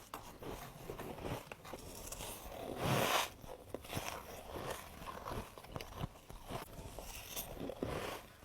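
A person biting and chewing humidifier ice, with brittle ice crackling and crunching between the teeth. The loudest bite comes about three seconds in.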